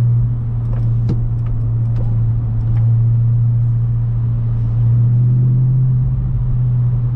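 2009 Audi R8's 4.2-litre V8 engine running at a steady, unchanging pitch, a deep drone with a few faint ticks over it.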